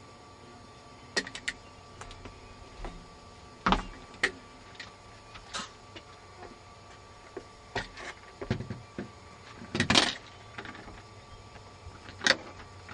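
Irregular small clicks, knocks and rattles from a person working at a front door's lock and handle, over a faint steady hum; the loudest group comes about ten seconds in.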